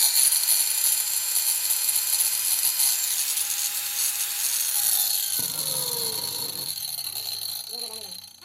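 Powerbilt angle grinder running at speed after a bearing replacement: a loud, steady, high whine with a hissing rush. Around the middle, some tones slide downward.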